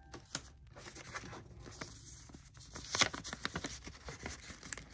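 Paper envelopes and sleeves from a screen protector kit rustling and crinkling as they are handled, with light irregular ticks and scrapes; the loudest rustle comes about three seconds in.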